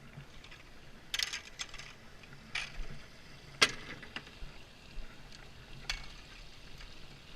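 Scattered clicks and knocks of pool-vacuum parts being handled as a piece is taken off. The sharpest knock comes a little past halfway, with lighter ones either side.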